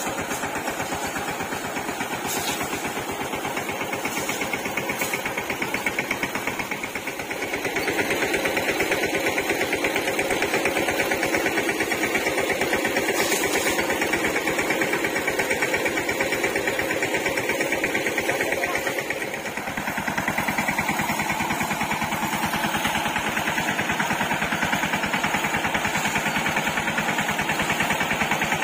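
High-pressure spray pump running steadily with a rapid, even pulsing beat while it drives insecticide spray up into coconut palms. The sound dips briefly and changes twice, about a quarter and two-thirds of the way through.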